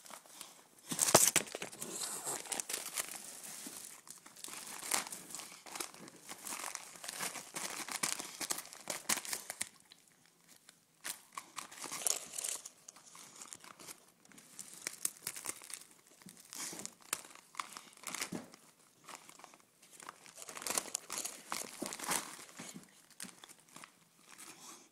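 Gift wrapping paper and shiny plastic wrap crinkling and tearing as a boxer dog rips open presents with its mouth, in irregular bursts with short pauses, loudest about a second in.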